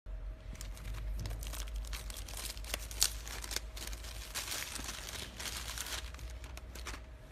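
Paper and plastic packaging crinkling and rustling as a black leather wallet is unwrapped from its box, in dense irregular crackles with a sharper crackle about three seconds in.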